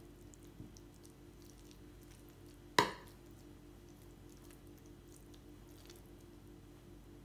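Metal spoon spreading moist sautéed leek filling over phyllo sheets in a baking tray: soft squishy scraping. About three seconds in there is one sharp clink of the spoon against the tray. A steady low hum runs underneath.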